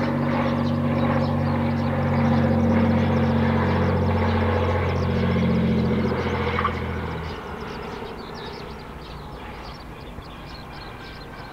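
Cessna T206H Turbo Stationair amphibian's turbocharged six-cylinder engine and three-blade propeller running with a low, steady hum as the plane rolls out on the runway after touchdown. The engine sound drops off sharply about seven seconds in, leaving a fainter, even noise.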